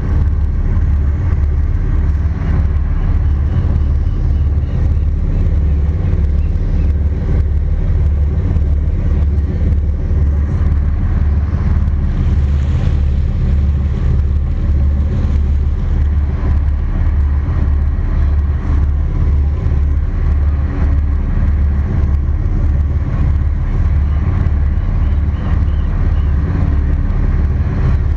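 Twin Cummins QSC 600-horsepower marine diesel engines driving Hamilton jet pumps, running steadily at low speed with an even low throb.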